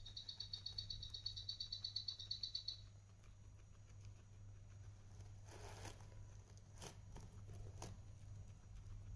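A rapid, high-pitched chirping, about nine pulses a second, runs for nearly three seconds and then stops. After it comes a guinea pig rustling and pulling hay from a hanging hay bag, with a brief rustle and two sharp clicks.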